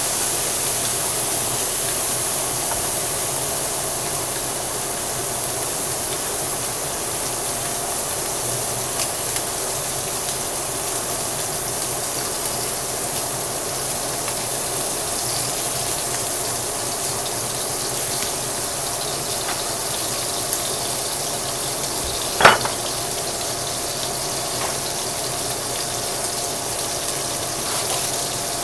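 Pork loin sizzling steadily in a hot pan as it browns, with a single sharp metallic clank about three-quarters of the way through.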